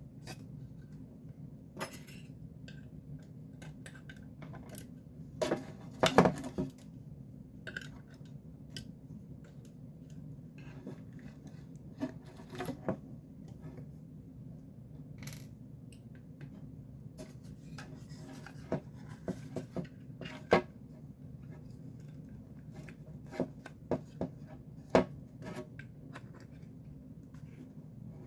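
Scattered clicks, knocks and light metallic clinks of tools and screws being handled while a Logitech Z623 speaker unit is opened up, with the loudest knocks about six seconds in and again near twenty-five seconds, over a steady low hum.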